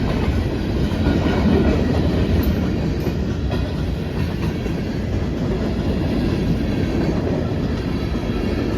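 Freight cars of a long CSX freight train rolling past at close range: a steady, dense rumble of steel wheels on rail.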